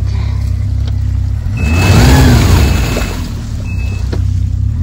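Snowmobile engine running steadily, then revved hard about a second and a half in for a second or so before dropping back, as the machine strains against heavy slush overflow while being pulled free.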